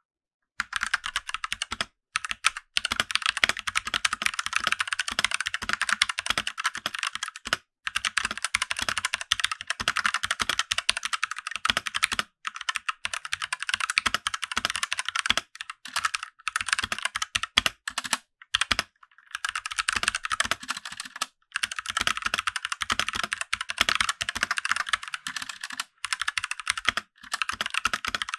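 Fast continuous typing on an Ajazz K680T mechanical keyboard: a dense clatter of key clicks, broken by brief pauses every few seconds.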